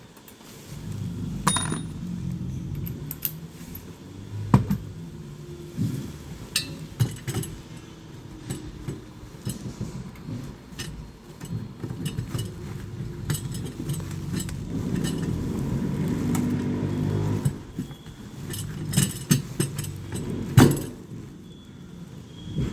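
Clinks, clicks and knocks of metal tools and parts being handled while a fire alarm control panel is fitted, over a low rumble that swells in the middle. The loudest knock comes near the end.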